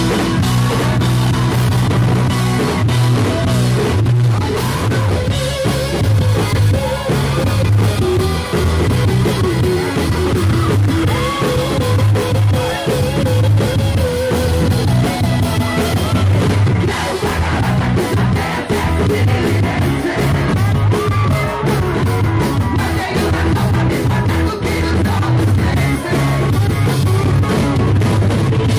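Live rock band playing: electric guitars, bass and drums, with a male lead vocal singing over them. Drum hits come more often in the second half.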